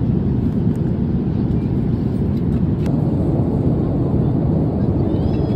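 Steady roar of airliner cabin noise inside a Boeing 787-9 Dreamliner in flight, with a light click about three seconds in.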